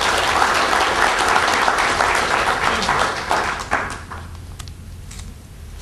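Audience applauding at the end of a talk: dense clapping for about four seconds that then thins out and dies away.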